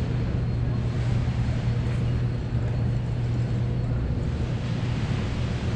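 Steady background din of a large trade-show hall: a constant low hum under an even wash of distant noise.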